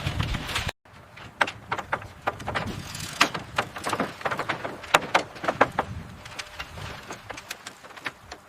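A short stretch of wind noise cuts off just under a second in. Irregular sharp knocks and clicks follow, a few each second, some much louder than others.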